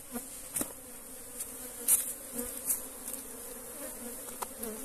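A swarm of Italian honeybees buzzing in a steady hum around their opened log hive, with a few short knocks and clicks from the combs being handled.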